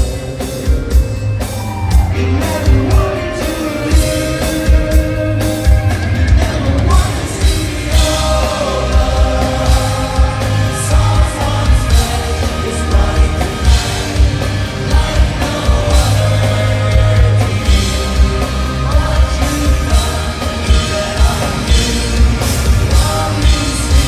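A live heavy rock band performs with a male lead vocalist singing over electric guitars, keyboards and hard-hitting drums, heard loud from within the crowd through a phone's microphone.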